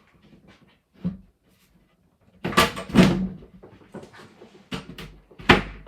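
Flat-pack kitchen wall cabinet panels knocked and pushed together as the top panel is seated onto the side panel: a series of sharp knocks and clunks, the loudest bunch about two and a half to three seconds in.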